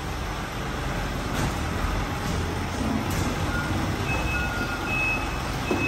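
Isuzu Elf NMR71 tow truck's diesel engine running steadily as it moves slowly into the bay. A reversing alarm starts beeping about four seconds in, in short repeated beeps.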